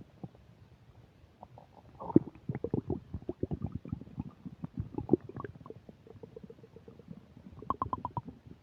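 Upset stomach gurgling and rumbling as it digests a meal. After about two quiet seconds comes a run of irregular bubbling pops and gurgles, then a short steady growl, then a quick burst of pops near the end.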